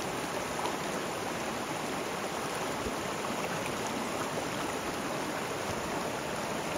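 Mountain creek flowing steadily over rocks, an even rush of water with no breaks.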